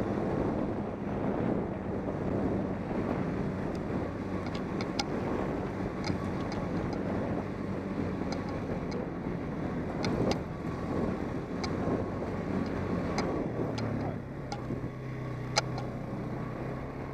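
ATV engine running under way along a dirt trail, with wind buffeting the helmet microphone and scattered sharp clicks and knocks from the bumpy ride. About fourteen seconds in, the engine note shifts and the sound eases slightly.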